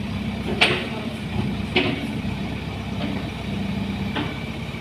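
Diesel engine idling steadily, with three short sharp knocks.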